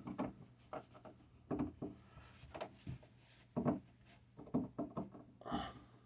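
Scattered light clicks and knocks of a screwdriver snugging down the screw on an outlet cover plate and handling the plate, about one a second, unevenly spaced.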